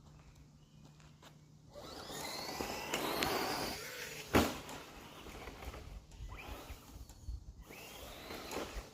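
Traxxas RC truck's motor whining up in pitch as it speeds over dirt toward the ramp, then a sharp thud about four and a half seconds in as it lands. The motor whines up and down twice more near the end.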